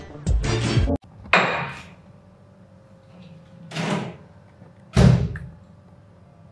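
Background music that cuts off about a second in, followed by a small fridge's door being handled: three thuds, the last and loudest about five seconds in as the door is shut.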